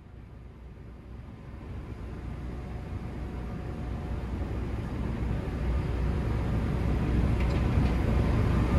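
Deep, steady rumble of ship's machinery with a rushing noise over it, growing steadily louder.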